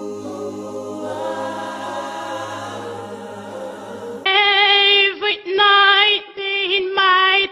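Music: a held choir-like chord, then about four seconds in a high solo singing voice comes in and sings short phrases over it.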